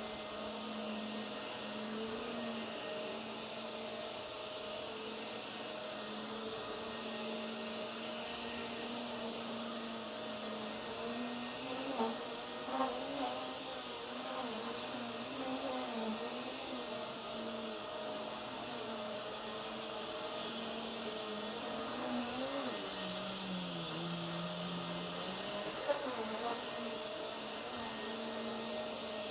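Hoover WindTunnel Tangle Guard upright vacuum running with its brush roll on, pushed over a rug: a steady motor hum with a high whine. From about halfway the hum's pitch wavers, and later it sags lower for a couple of seconds as the motor slows under load, with a light knock or two.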